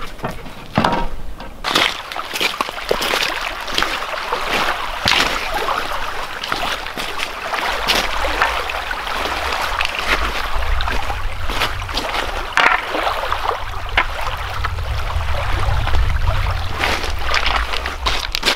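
Lake water sloshing and splashing against a pebble shore, with scattered short clicks and knocks. A low rumble of wind on the microphone comes in through the middle.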